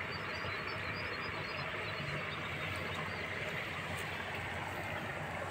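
Motorcycle engine running steadily while riding along a dirt track.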